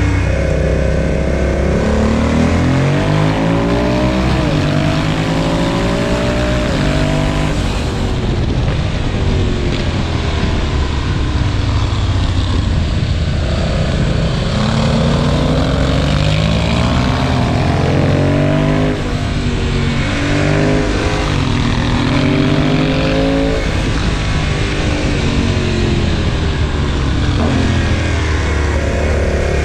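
Motorcycle engine heard while riding, its pitch rising and falling repeatedly as the revs change, over a steady rush of wind.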